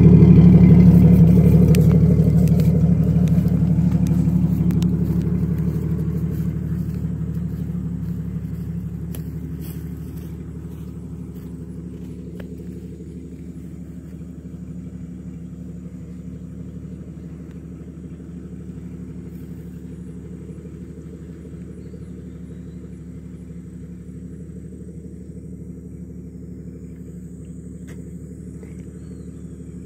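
1997 Jeep Grand Cherokee ZJ's 4.0 straight-six idling with a steady rumble through an exhaust with no catalytic converter and a welded dual-chamber Flowmaster 40-style muffler. Loudest at first, it fades over about ten seconds with growing distance and then holds steady, fainter.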